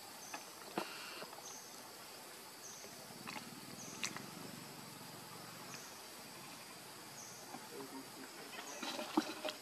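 Quiet outdoor forest ambience: a short, high-pitched chirp repeats roughly once a second over a steady background hiss, with a few sharp clicks scattered through.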